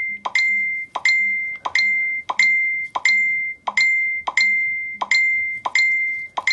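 Smartphone text-message alert chiming over and over, about ten pings in quick succession, roughly one every 0.7 seconds: a run of incoming texts. Each ping is a quick tap followed by a high ringing tone that fades.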